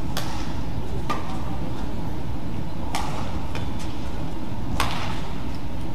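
Badminton rackets striking a shuttlecock in a rally: four sharp hits one to two seconds apart, over a steady low hum of the hall.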